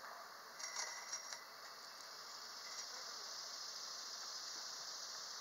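Steady high drone of insects in the summer woods, with a few light metallic clinks with a brief ring between about half a second and a second and a half in.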